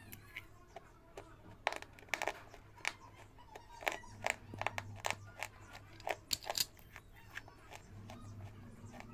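Brittle brown discs being bitten and chewed close to the microphone: a run of sharp, dry crunches and cracks in irregular clusters, some of them loud.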